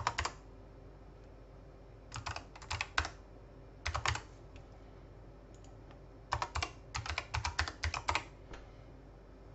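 Computer keyboard typing in short bursts of keystrokes with pauses between: a few at the start, a cluster about two to three seconds in, another around four seconds, and a longer run of quick keystrokes from about six to eight seconds in.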